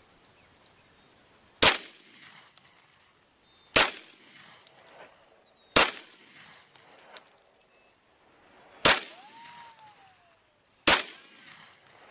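Five shots from a Glock Model 40 10mm pistol, spaced about two seconds apart, each followed by a ringing tail. A short falling whine follows the fourth shot.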